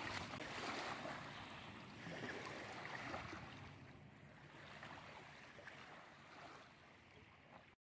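Faint lapping of small waves at a gravel shoreline, slowly fading out and cutting off just before the end.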